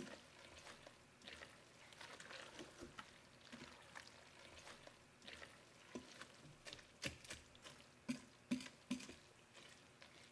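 Metal tongs tossing angel hair pasta and vegetables in a buttery sauce in a pressure cooker pot: faint wet squishing with scattered light clicks, a few sharper ones in the second half.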